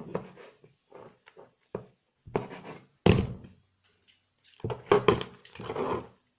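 Irregular handling noise close to the microphone: a string of knocks, thunks and rubs, loudest about three seconds in and again about five seconds in.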